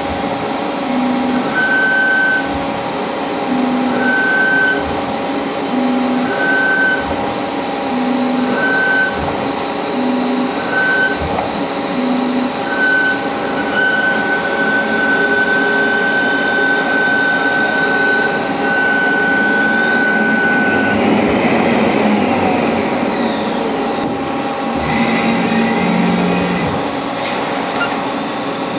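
CNC lathe machining a yoyo workpiece. Steady spindle whine under a short cutting tone that repeats about once a second, then a long continuous cut, then pitch sweeps near the end as the spindle speed changes.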